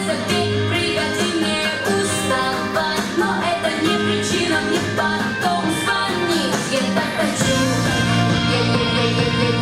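A young girl singing a pop song over instrumental accompaniment with guitar. The bass gets fuller about three quarters of the way through.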